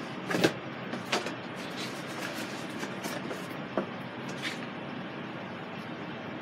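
A few light clicks and knocks of metal kitchen utensils being handled, the loudest about half a second in, over a steady even hum.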